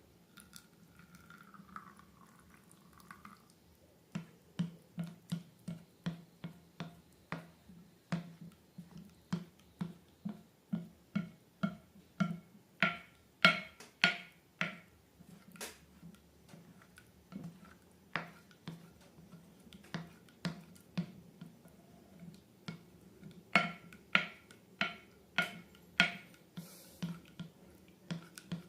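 Sticky slime being squeezed and worked by hand, making a long run of wet clicks and pops, about two to three a second, starting a few seconds in and loudest in two spells.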